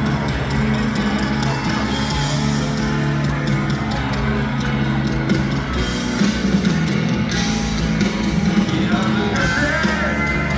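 Live band music with guitar, an instrumental stretch of a pop-rock song at a stadium concert, playing loudly and steadily without a break.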